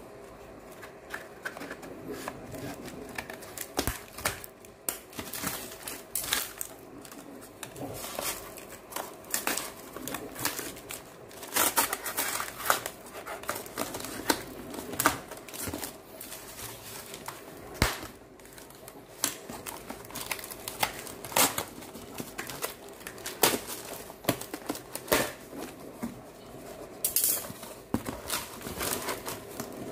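Cardboard box being cut open with scissors and pulled apart by hand: irregular snips, rips and crinkling of cardboard.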